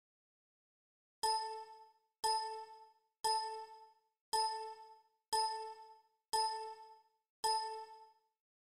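A computer alert chime from a proofreading program dings seven times, about once a second, and each ding rings out and fades before the next. Each ding marks the program stepping on to the next line of text.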